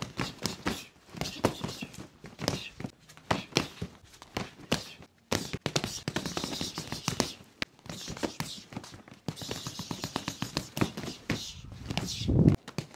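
Rapid, irregular flurry of hand strikes slapping and knocking on a Century striking dummy and its padded arms as they are trapped and hit, with a heavier thud near the end.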